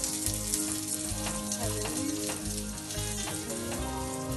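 Aloo tikki potato patty sizzling as it shallow-fries in oil on a flat griddle, with a metal spatula scraping and tapping on the pan now and then. Background music with a steady beat plays underneath.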